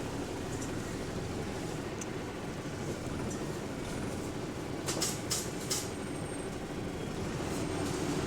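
The inside of a bus on the move: a steady engine and running drone, with three short, sharp hissing clicks close together about five seconds in.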